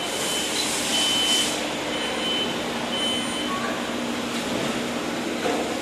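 PCB assembly-line machines running steadily, with a low steady hum under them. A short high electronic beep sounds about once a second, four times in the first three and a half seconds.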